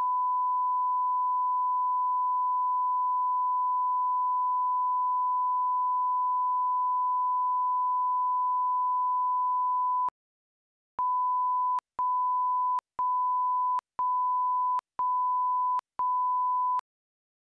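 Broadcast line-up test tone, one steady pure pitch, which cuts off about ten seconds in; after a second's gap come six short countdown beeps at the same pitch, one a second.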